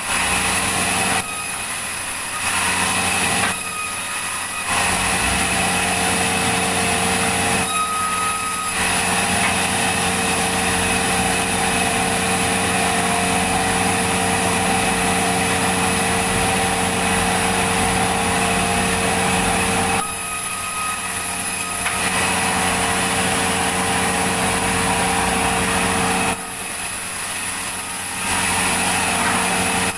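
Sawmill machinery running steadily with a constant motor hum while the saw cuts through a log. The level steps abruptly between louder and somewhat quieter stretches several times.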